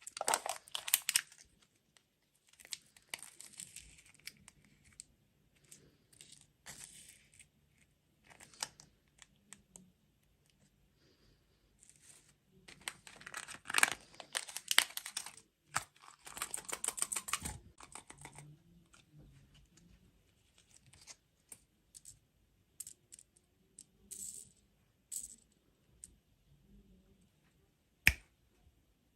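Packaging of sweets being crinkled and torn open, in several bursts of rustling with many small clicks, the longest around the middle, and scattered single taps and clicks between, with one sharp click near the end.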